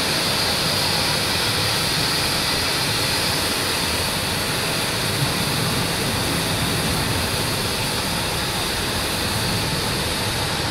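Steady jet aircraft noise: an even rushing whine with a strong high hiss that holds at one level throughout.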